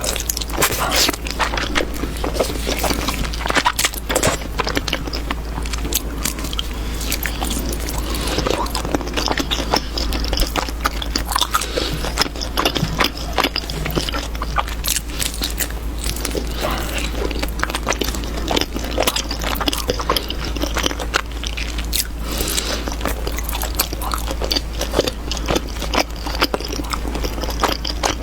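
Close-miked eating sounds: a person biting and chewing soft dough buns and cake, with a dense run of small mouth clicks and smacks. A steady low hum sits underneath.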